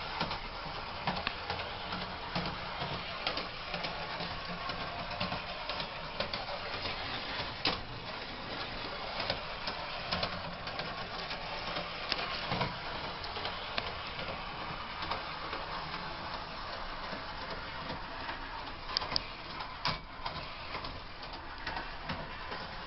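Lionel model trolley running along a shelf-mounted track: a steady whir from its small electric motor and wheels, with scattered sharp clicks.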